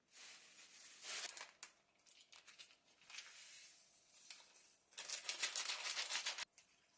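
Plastic food packaging crinkling and being torn open in several bursts, the loudest a rapid ripping of about a second and a half near the end.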